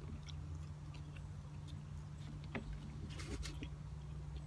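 Quiet eating at a table: a knife and fork working food in a paper wrapper, giving scattered faint clicks and ticks, with a small cluster about three seconds in.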